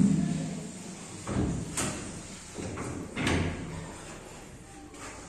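A plywood sofa-cum-bed with an Ebco pull-out fitting is being folded by hand. Its hinged panel and sliding bed section give a few short wooden knocks and sliding scrapes, about one a second, over the first three and a half seconds.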